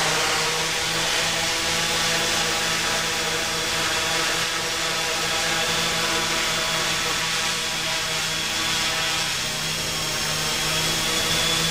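Quadrotor drone's propellers and motors running steadily in flight, an even multi-toned buzz with a thin high whine over it.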